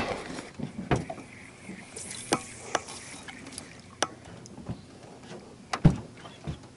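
Scattered sharp knocks and taps in an aluminum fishing boat as gear and feet shift about, the loudest a heavier knock about six seconds in, with a brief hiss around two seconds in.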